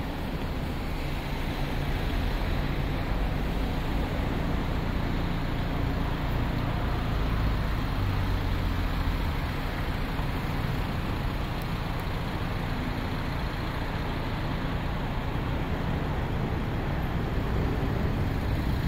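City street traffic: the steady noise of passing motor vehicles' engines and tyres, with a low engine hum underneath.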